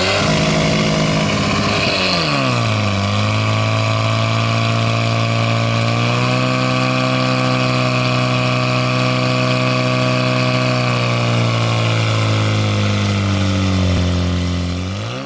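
Portable fire pump's engine running hard while pumping water out to the hose lines and jets. Its engine speed dips after a couple of seconds, picks up again midway, eases back later on and rises again at the end.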